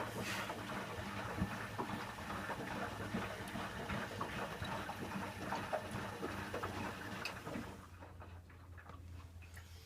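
Candy Aquamatic 1000T compact washing machine on an empty descaling wash: water splashing and pattering in the drum. The splashing dies away about eight seconds in, leaving a steady low hum.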